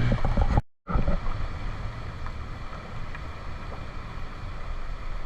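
Steady low rushing noise of river water and wind on the microphone, broken by a brief dropout to silence just under a second in.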